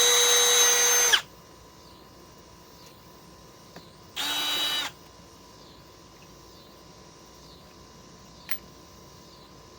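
Cordless drill driver backing a screw out of wood: its motor whines steadily at full speed and stops about a second in. A second, shorter and quieter run follows a little over four seconds in, and a single sharp click comes near the end.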